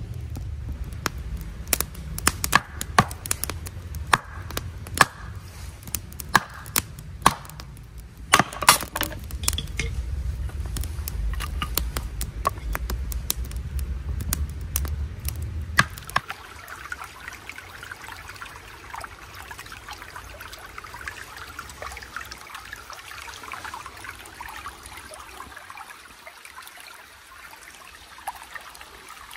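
Sharp cracks and knocks of a kindling fire and hatchet blows on wood, loudest about once a second, over a low rumble; about halfway through these stop and give way to the steady trickle of a shallow forest stream running over stones.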